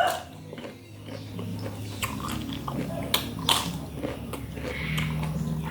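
A person chewing and biting into vegetables close to the microphone, with scattered short, crisp crunching clicks.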